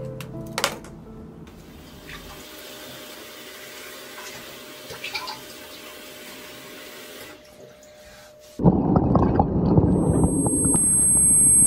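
Water running from a bathroom tap into a sink as a soft steady hiss; nearly nine seconds in, sudden loud splashing and churning water takes over. About ten seconds in a thin, very high ringing tone joins it.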